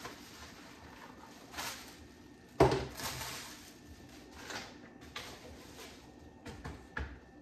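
Plastic wrapping rustling and crinkling as a glass pot lid and a large pot are unwrapped, with a single loud clank of cookware about two and a half seconds in and a couple of lighter knocks near the end.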